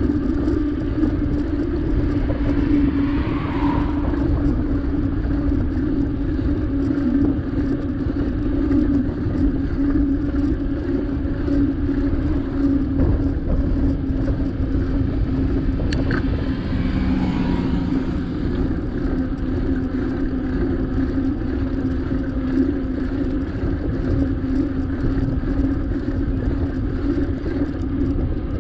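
Steady rumble of wind and road noise while riding a bicycle, with a constant low hum underneath. Something faint passes by twice, about three seconds in and again past the middle, with a brief click at the second pass.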